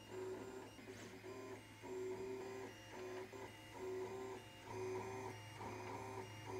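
Cocoon Create FDM 3D printer printing: its stepper motors sing short steady tones that change pitch every half second or so as the print head moves, over a steady low hum.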